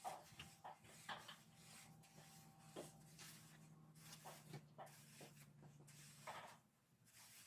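Faint scraping and short knocks of a shovel working crushed paver base gravel, over a faint steady low hum.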